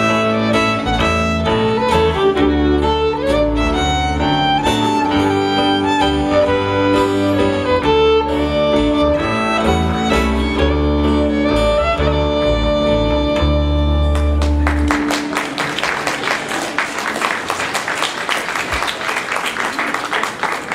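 Fiddle and acoustic guitar playing a waltz in D, closing on a long final chord about three-quarters of the way through, followed by audience applause.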